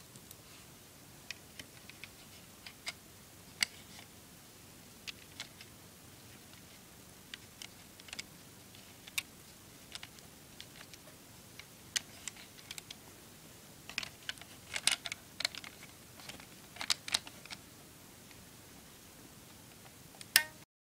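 Small plastic Lego pieces clicking and clacking as hands load brick ammunition into a Lego rubber-band pistol and hook its rubber bands: scattered sharp clicks, bunched together about two-thirds of the way in, with one loud click near the end.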